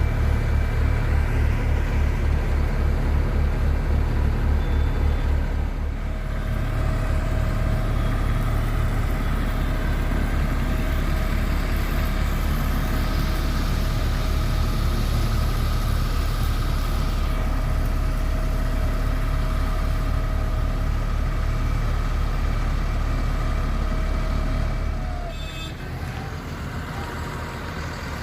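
Heavy diesel engine of road-construction machinery running with a steady low throb, dropping quieter near the end.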